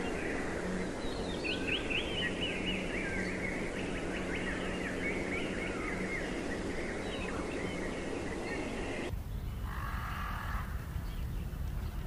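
A busy chorus of small birds chirping and twittering, many quick notes sweeping up and down, over a steady low hum. About nine seconds in, the sound cuts abruptly to a different recording with a few lower calls.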